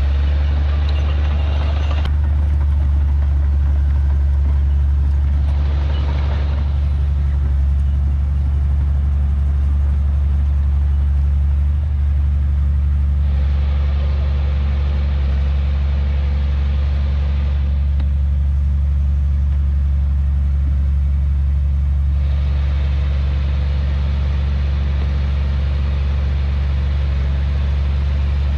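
Heavy diesel earthmoving machinery running steadily with a deep, constant drone. A higher rushing noise rises and falls three times over it as the machines work.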